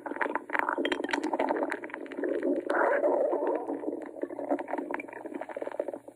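A hungry man's empty stomach growling: continuous gurgling rumbles with many small crackles, swelling louder about three seconds in.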